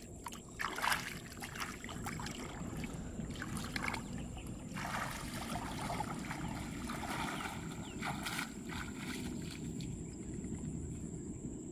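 Water splashing and sloshing in irregular bursts as live eels and fish move in a plastic basket of water, over a steady low rumble.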